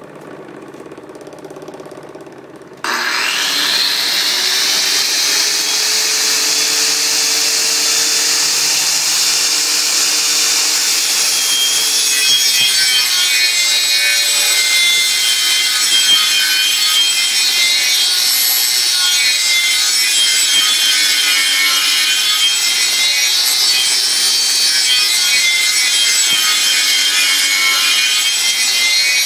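The cutting motor of a homemade copy lathe starts about three seconds in with a rising whine and runs steadily, then freehand cuts into a spinning piece of firewood with a steady sawing, rubbing sound whose pitch wavers as the cut loads it.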